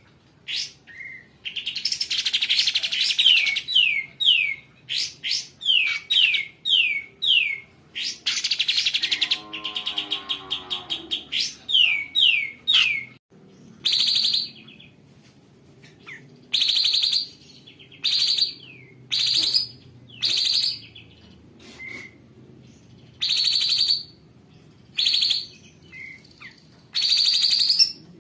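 Kapas tembak (pied triller) singing: quick runs of downward-slurred notes and rough, buzzy trills, then from about halfway loud, separate sharp notes with short gaps between them.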